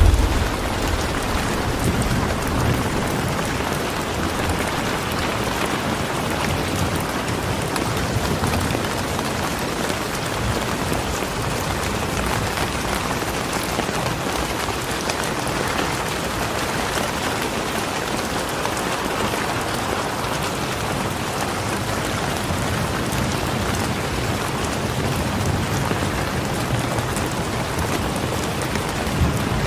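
Calm rain falling steadily, an even wash of many drops.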